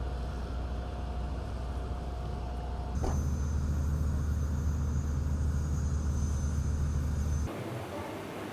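Airliner jet engines running: a steady low rumble with a thin, steady high whine. The sound changes abruptly about three seconds in and again near the end, as between separate shots.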